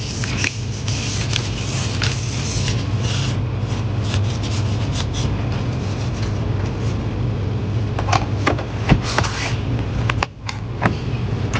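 Hand work on an opened laptop: irregular rubbing and scraping with scattered sharp clicks, over a steady low hum.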